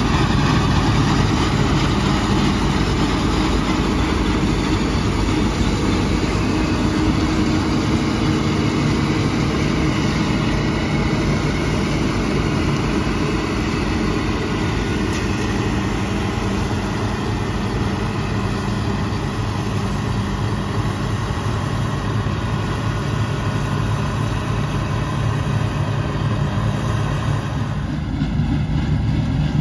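Bizon Z056 Super combine harvester's SW-400 six-cylinder diesel engine running steadily under load while the combine harvests wheat. The sound changes slightly near the end.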